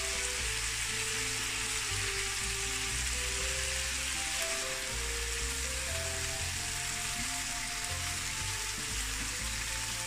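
Chicken pieces sizzling steadily in oil in an electric frying pan, the cooking water boiled off. Soft background music with short held notes and a low bass plays under the sizzle.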